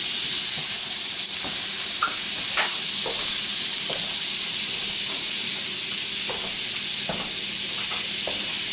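Butter melting and sizzling in a hot frying pan: a steady hiss with scattered small pops and spits.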